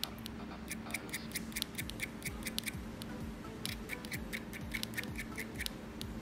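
Background music with a steady ticking beat of about four ticks a second over a low sustained drone.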